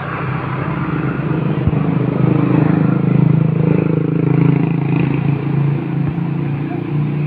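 A motor vehicle engine running close by. It gets louder over the first two or three seconds, holds steady, then eases off near the end.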